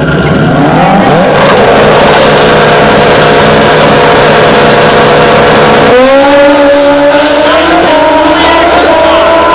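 Pro Street drag motorcycle engine revved up and held at a steady high note on the starting line, then launching about six seconds in, its note climbing in stages as the bike accelerates away down the quarter mile.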